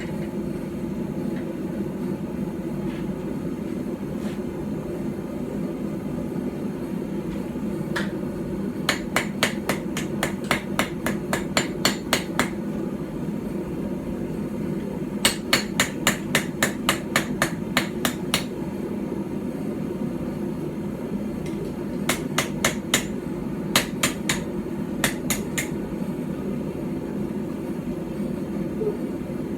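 Small hand-forged hammer striking hot steel on a small stump anvil, about three ringing blows a second in three runs with short pauses between, as the knife blade is hammered flat. A steady low hum runs underneath.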